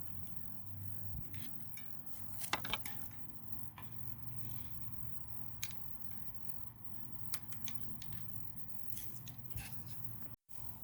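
Scattered metallic clicks and clinks of tools and small bicycle brake parts being handled. The sharpest cluster comes about two and a half seconds in, over a steady low hum.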